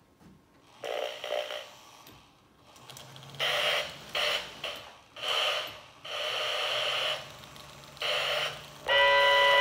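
Lionel MPC-era Mighty Sounds of Steam in an O gauge steam locomotive: slow, uneven hissing steam chuffs over a faint steady hum. Near the end a loud steam whistle starts blowing.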